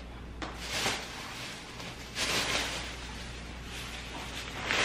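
Thin plastic shopping bag rustling and crinkling as it is picked up and handled, in a few short bursts, the loudest near the end.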